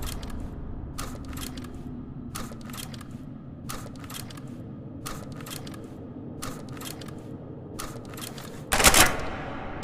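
Shotgun sound effect: small groups of two or three sharp mechanical clicks repeat about every second and a quarter, then a loud shot goes off about nine seconds in.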